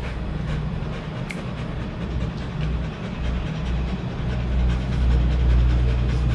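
Low, steady engine-like rumble, growing louder about four and a half seconds in, with a few light clicks over it.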